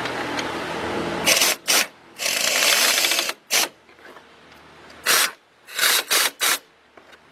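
Impact gun run in a series of bursts, one long burst of about a second and several short ones, tightening the 12 mm brake caliper bolts.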